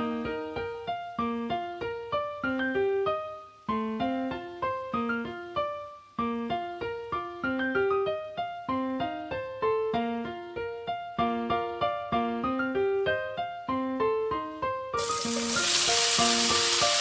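Background piano music of short, evenly spaced notes. About two seconds before the end, the loud sizzle of chicken and diced vegetables stir-frying in a wok comes in under the music.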